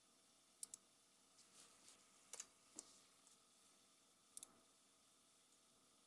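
Quiet room tone broken by a few short, sharp computer clicks, mostly in quick pairs: one pair about half a second in, another with a single click soon after around two and a half seconds, and a last pair near four and a half seconds.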